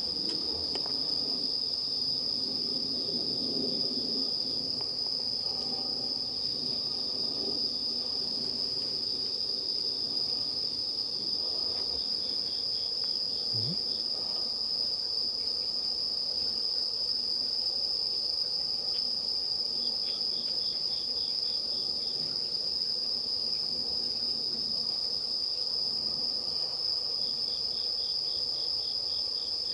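Night insects chirping: a steady high-pitched trill, joined three times by short runs of another insect's rapid pulsed chirps.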